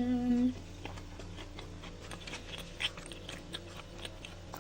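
A person chewing a mouthful of salad with pomegranate seeds, with small crunches and mouth clicks, after a short hummed "mmm" at the start.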